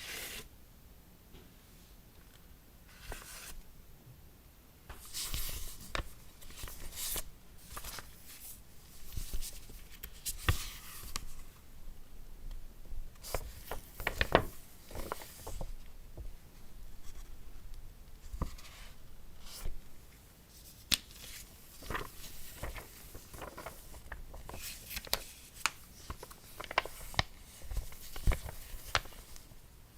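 Hands unboxing an Apple Magic Keyboard for iPad Pro: rubbing and rustling of packaging and the keyboard, with many sharp taps and clicks. The handling starts about five seconds in, after a quieter opening.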